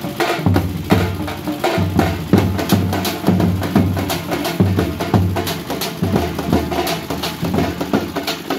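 A drum troupe playing a loud, fast rhythm. Big bass drums boom about twice a second under quick stick strokes on steel-shelled drums and hand-held drums.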